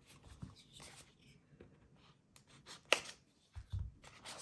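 Small keycap packaging being handled and opened: soft rustling and scraping, with one sharp click about three seconds in and a short low thump just after.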